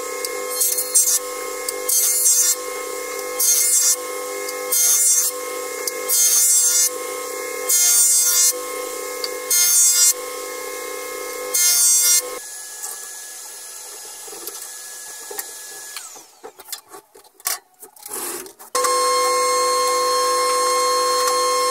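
Combination jointer-thickness planer running with a steady hum while short boards are pushed across the spinning jointer cutterhead, a burst of cutting noise with each pass, about every one and a half seconds. Past the middle the machine runs quieter, there are scattered knocks and clatter, and near the end it runs again with a steady loud hum in thickness-planer mode.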